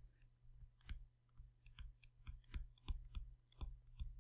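Stylus tapping and clicking on a writing tablet as words are handwritten: irregular sharp clicks, two or three a second, over a faint steady low hum.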